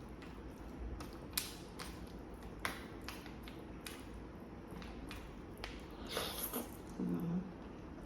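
Close-miked eating sounds from someone starting on a plate of pasta: scattered sharp clicks and mouth smacks. There is a brief rustling burst about six seconds in and a short low hum about seven seconds in.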